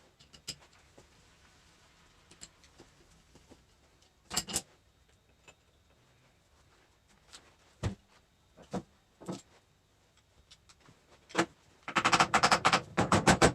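Metal tools and parts clicking and clinking as a hydraulic valve is taken apart by hand: scattered single knocks, a double clack about four seconds in, and a fast, loud clatter of metal near the end.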